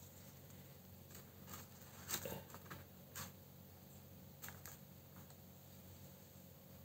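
Faint rustles and light taps of small paper pieces being handled and set down on a table, a few scattered short sounds with the loudest about two seconds in, over a faint steady hum.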